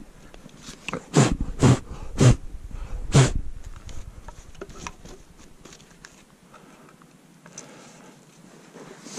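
Skis crunching and pressing through deep snow: four heavy strides in the first few seconds, then lighter scattered rustling and creaks.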